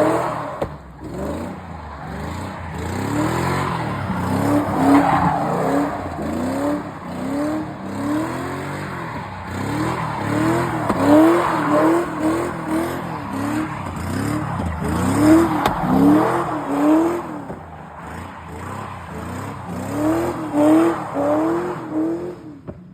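2002 Ford Mustang GT's 4.6-litre V8 revving up and falling back again and again while the car is drifted, with its tyres squealing. The engine has an exhaust leak.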